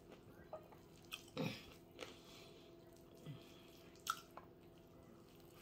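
Close-up eating sounds: a person chewing a soft mouthful of rice and beans, with quiet wet mouth smacks and clicks scattered through, a few sharper ones about a second and a half and four seconds in.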